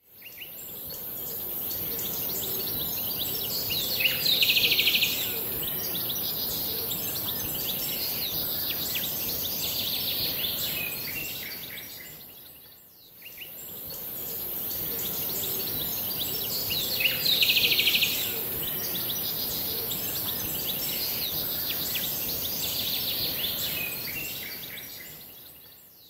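Nature ambience of many small birds chirping and calling over a steady high hiss, with a louder buzzy trill about four seconds in. The same stretch plays twice, fading out and back in halfway through, as a looped recording.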